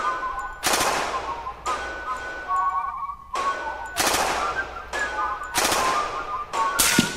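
Gunshots in an irregular series, roughly one a second, each with a long echoing tail, with faint high whistle-like tones between them.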